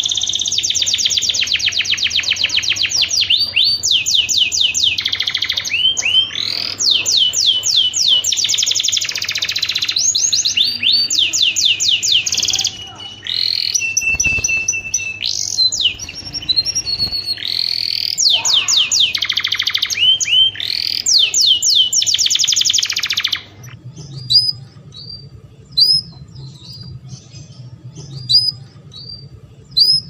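Domestic canary singing: fast rolling trills and rapid runs of repeated notes in phrases back to back. About three-quarters of the way through the song stops, leaving short single chirps about once a second over a low pulsing buzz.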